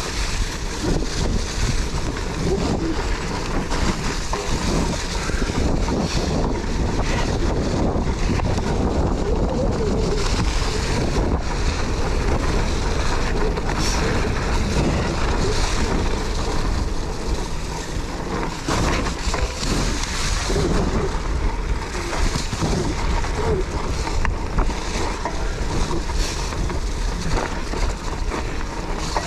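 Steady, loud wind buffeting on an action camera's microphone, a dense rushing noise that swells and dips irregularly.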